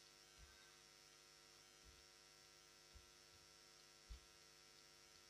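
Near silence: a faint steady electrical hum, with a few soft low knocks.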